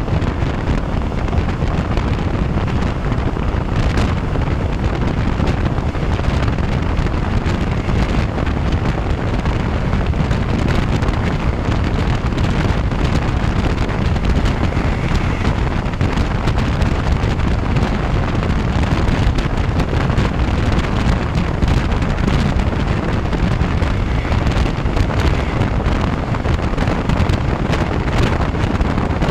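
Steady wind buffeting the microphone held out of the open window of a moving passenger train, over the running noise of the train on the track.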